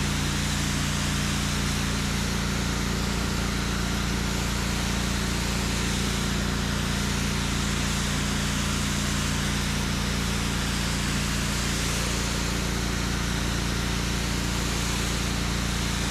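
Pressure washer running steadily: a constant engine hum under a continuous spray hiss.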